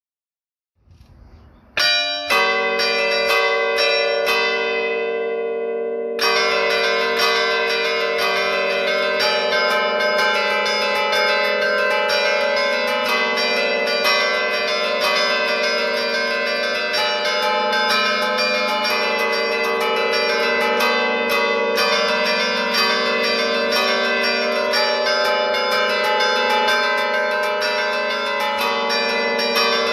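Church tower bells played from a hand keyboard in the allegrezza style, clappers striking the stationary bells. A few strokes about two seconds in are left ringing and dying away, then from about six seconds a fast, continuous festive tune of struck bell notes.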